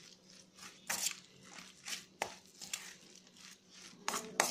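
Spoon stirring a thick chana dal and bathua batter with chopped onion in a steel bowl: irregular scrapes and clicks of the spoon against the bowl, loudest about a second in and near the end.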